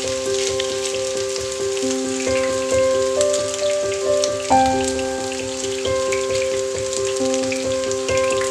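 Kebab patties shallow-frying in hot oil, a steady fine crackling sizzle. Over it, and louder, slow background music of held chords.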